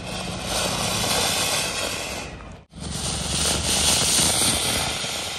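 Anar (flowerpot fountain firework) burning with a loud, steady hissing rush of sparks. It is being test-lit after the packet got soaked. The sound breaks off for an instant about halfway through and then carries on.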